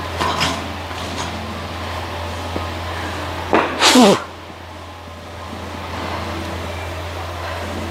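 A woman's loud breathy exhale whose voice falls in pitch, about halfway through, over a steady low hum. There are a couple of fainter breaths near the start.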